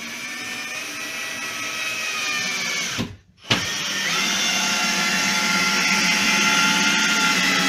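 Cordless drill-driver driving wood screws into pine bench boards, its motor whining steadily. It stops for a moment about three seconds in, then runs again.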